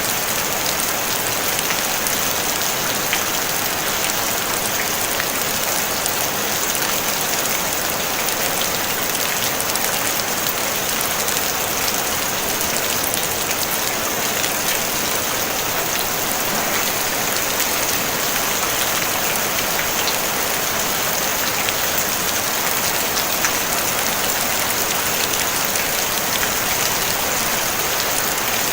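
Steady rain falling on a tin roof: an even hiss with faint scattered ticks of single drops, no thunder.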